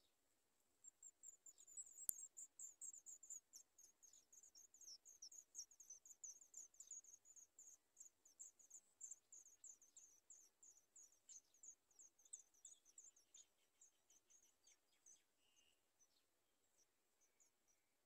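Sooty chat nestlings begging for food: a rapid run of very high, thin chirps, several a second, starting about a second in and thinning out over the last few seconds. A single sharp click about two seconds in is the loudest moment.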